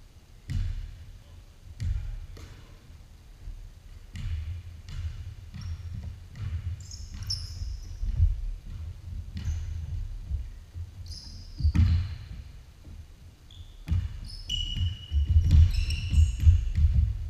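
A basketball being dribbled and bounced on a hardwood gym floor, a run of thuds with a few sharper hits, and sneakers squeaking on the court several times, most of all near the end.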